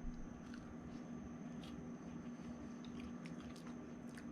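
A person chewing a mouthful of cooked fish: faint, soft, irregular mouth clicks over a steady low hum.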